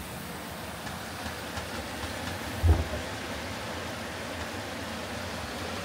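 Steady rush of a mountain creek, with one low thump about two and a half seconds in as the camper's strut-supported hatch swings open.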